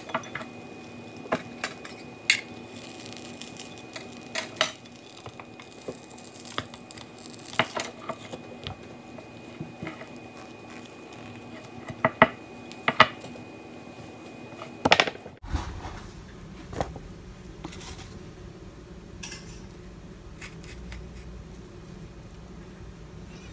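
Clinks and knocks of a metal utensil against a ceramic mug and stone countertop as a waffle is pressed into the mug: a dozen or so sharp, separate taps. About two thirds of the way in the sound cuts to quieter handling with a single tap.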